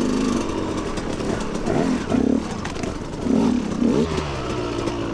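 Motorcycle engine running under way, its pitch rising and falling as the throttle is worked, with short louder rev swells a couple of times near the middle and end.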